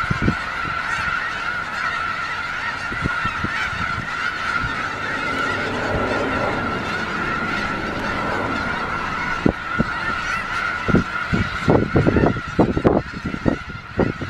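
A huge flock of snow geese calling, a dense, steady din of honking. Low thumps break in during the second half.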